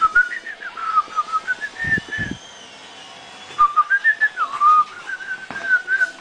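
A person whistling a tune in two phrases, the pitch stepping up and down, with a pause between the phrases. A couple of low, dull thumps come about two seconds in.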